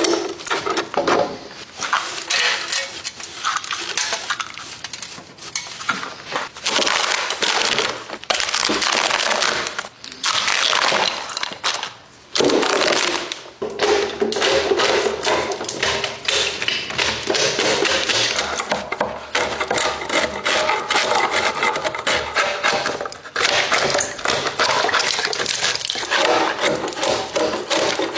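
Wood being worked with tools: continuous scraping and rasping strokes with knocks, pausing briefly a few times, with a humming tone coming and going.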